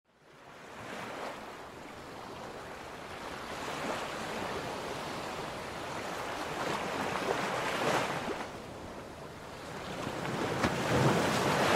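Rushing noise like surf washing in, fading in at the start and swelling and ebbing every few seconds, loudest near the end.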